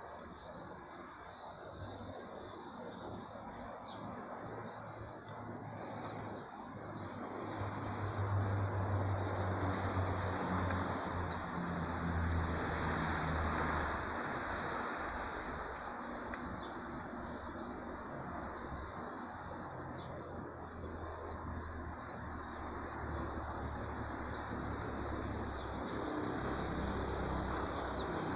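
Morning chorus of many small birds chirping and calling over one another, with a steady high hiss behind them. A low rumble swells up about a quarter of the way in and fades back by the middle.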